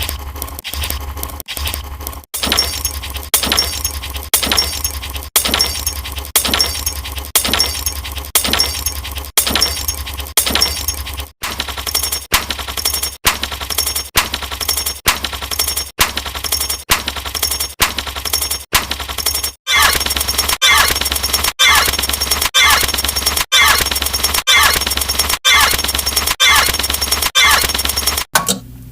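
Sound effects looped in a steady rhythm of sharp hits, about one a second, over a constant low hum. The effect changes about two, eleven, twenty and twenty-eight seconds in, and from about twenty seconds in each hit also carries a quick high falling tone.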